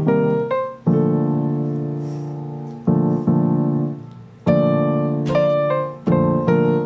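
Background piano music: slow chords struck every second or two and left to ring and fade.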